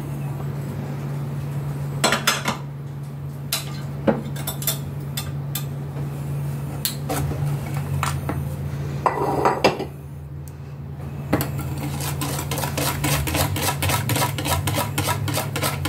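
Wire balloon whisk beating thin cake batter in a plastic mixing bowl: a few separate clinks in the first seconds, then rapid, even clicking of the wires against the bowl through the last few seconds, over a steady low hum.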